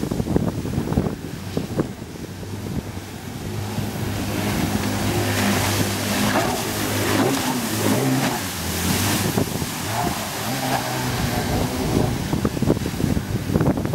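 Engine of a Narwhal Sea Jet 280 jet-drive inflatable boat running at speed through turns, its note rising and falling. Wind buffets the microphone near the start and again near the end.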